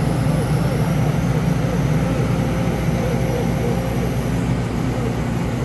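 Heavy diesel engine running steadily with a deep, even rumble.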